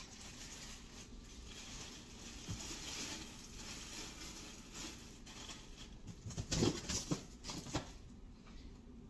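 Faint rustling and shuffling handling noises, with a few soft knocks about two-thirds of the way through.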